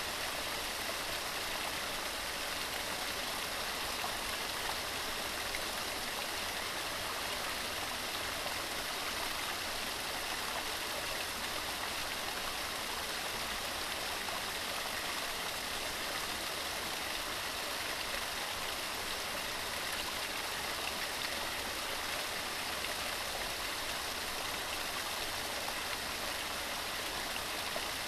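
Waterfall rushing steadily, a constant, unbroken sound of falling water.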